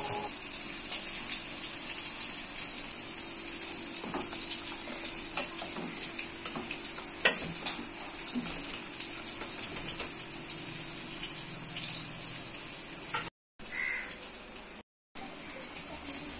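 Pot of coconut fish curry simmering on the stove: a steady hiss, with a few faint clicks of a steel ladle against the pot. The sound cuts out briefly twice near the end.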